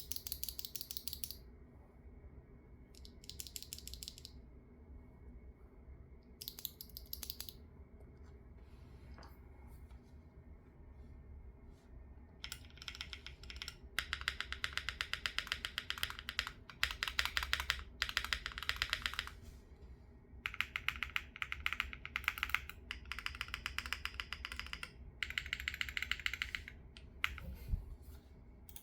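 Typing on a Wave75 mechanical keyboard with 雪青 (Xueqing) switches whose factory lube has been wiped off, under GMK ABS keycaps: rapid key clacks. There are three short bursts in the first eight seconds, then longer, steadier runs of typing from about twelve seconds in, broken by brief pauses.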